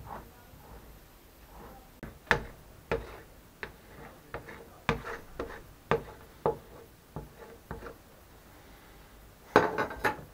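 Flat metal scraper scraping impurities off the underside of a cooled beeswax ingot: a run of short, irregular scraping strokes, then a louder clatter near the end.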